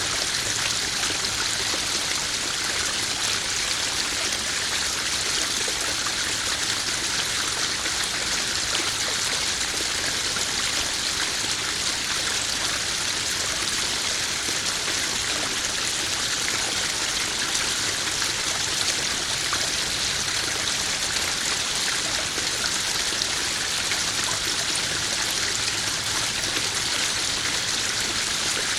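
Small garden waterfall splashing steadily into a koi pond, an even rush of falling and trickling water.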